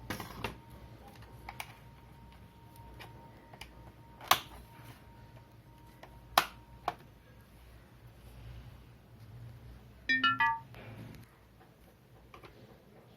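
Sharp plastic clicks and snaps, a few seconds apart, as the laptop's plastic base cover is pried loose from its clips. About ten seconds in, a short electronic chime of quickly falling notes, like a phone notification tone.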